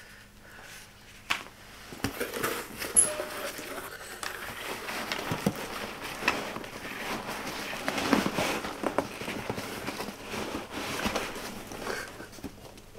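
Hands rummaging through foam packing peanuts in a cardboard box: an irregular rustling and crackling with scattered small clicks as the peanuts shift against the cardboard.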